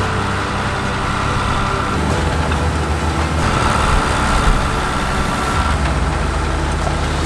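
Schlüter Compact 950 V6 tractor engine running steadily while it pulls a mounted tine weeder through a maize field.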